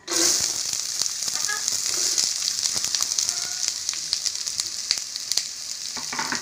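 Chopped red onions frying in hot oil in a pot with whole spices: a steady sizzling hiss dotted with crackles. It starts suddenly right at the beginning.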